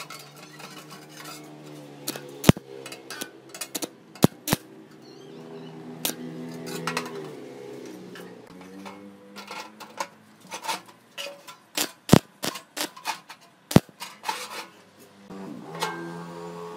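Perforated steel mesh and locking pliers being handled: scattered sharp metal clinks and knocks, the loudest about two and a half seconds in and again near the end. Soft background music plays underneath.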